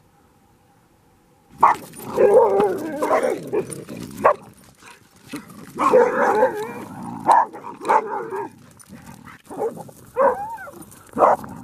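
Dogs barking in a frenzy at approaching coyotes: rapid, overlapping barks and yips that break out suddenly about a second and a half in, with some higher, sliding yelps near the end.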